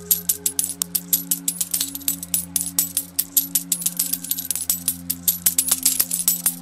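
Many sharp metallic clinks of falling coins, several a second and uneven, over slow music of low held notes that shift every second or so.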